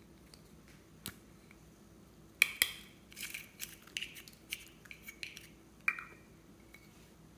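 Small plastic slime container handled: sharp clicks of its snap-on lid coming off about two and a half seconds in, a run of crackly clicks and pops as the contents go into a bowl of slime and foam beads, and another sharp click near six seconds as the lid is pressed back on.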